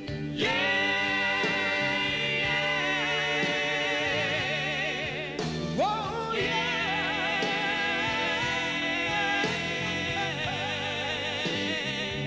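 A male soul singer sings live over the band, holding two long, high wordless notes with a wide vibrato. The second note slides up into place about halfway through.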